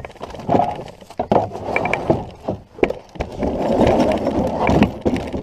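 Irregular wooden knocks and clunks against a canoe hull as it is paddled and poled, over a rushing noise that grows louder in the second half.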